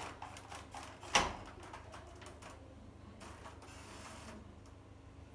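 A series of light clicks and knocks from objects being handled, with one sharp knock about a second in and a brief rustling hiss around three to four seconds in.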